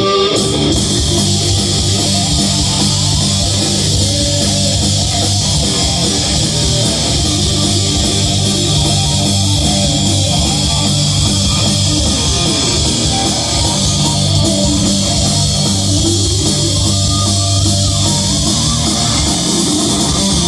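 Live heavy rock band playing an instrumental stretch with no vocals: distorted electric guitar to the fore over bass guitar and a driving drum kit.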